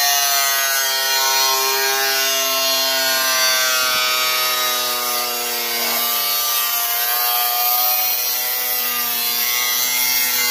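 Electric angle grinder running under load, its disc grinding into the rusted sheet steel of a car's rear quarter panel and wheel arch. The motor whine sags a little in pitch as the disc bites and then picks back up, over a steady hiss of abrasion.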